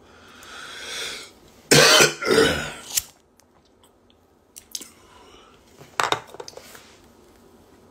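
A man breathes out softly, then clears his throat with a loud, rough cough about two seconds in. A few faint clicks and breath sounds follow.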